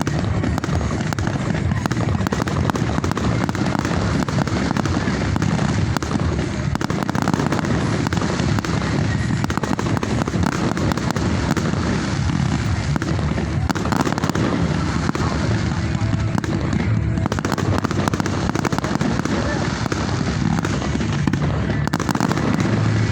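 Fireworks display going off: a continuous dense crackle of many small bangs and pops, with voices underneath.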